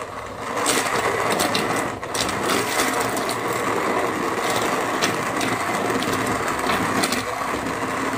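Electric hand blender running in a steel pot of boiled lemons and water, its blade chopping the softened lemon pieces into pulp with many small knocks. It grows louder about half a second in and dips briefly around two seconds in.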